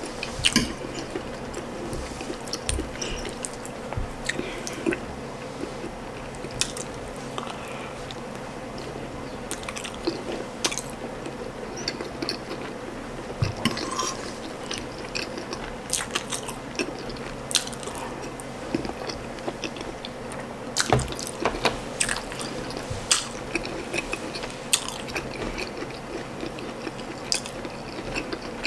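Close-miked chewing of ndole stew and soft boiled ripe plantain, with irregular wet mouth clicks and smacks.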